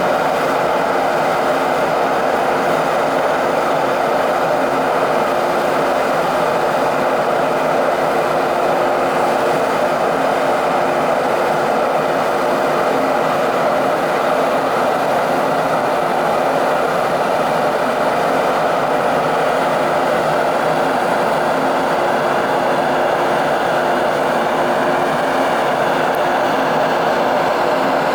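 Steady, unchanging mechanical rush and low hum of the large car ferry Ferry Dōgo's machinery, its engines and ventilation running as it leaves port.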